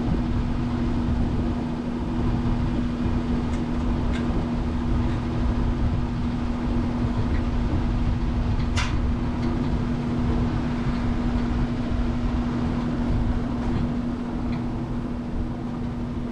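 Large drum shop fan running steadily: a constant hum over a broad rushing noise. A single sharp click about nine seconds in.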